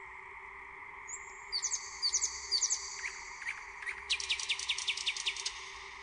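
Nightingale singing: a held high whistle and a few sharp downward-swept notes, then a fast rattling run of about ten descending notes near the end, over a steady faint hum.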